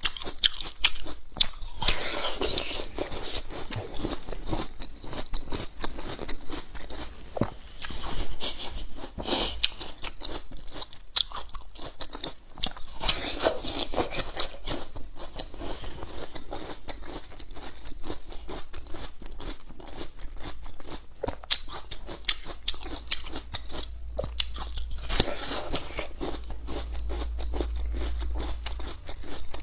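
A person biting into and chewing a crisp, very juicy yacon root, with wet crunching and crackling throughout and several louder bites.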